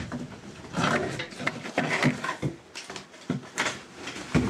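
Irregular knocks, scrapes and rustles from an item being shifted and handled in a cramped yacht compartment, with short non-speech vocal sounds such as breaths or grunts.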